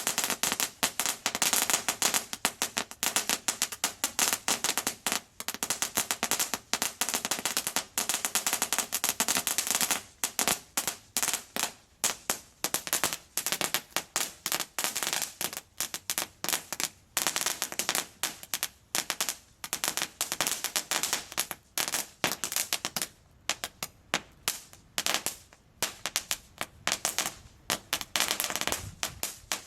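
Crackling firework fountain (Phantom Fireworks 90 Second Crackling Assault) firing off its crackling balls as a fast stream of sharp snaps. The snaps come in a dense rush for about the first ten seconds, then thin out to scattered crackles.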